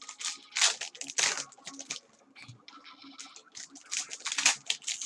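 Plastic-foil wrappers of Panini Contenders football card packs crinkling and tearing as they are handled and opened, in bursts of rustling around one second in and again around four seconds in.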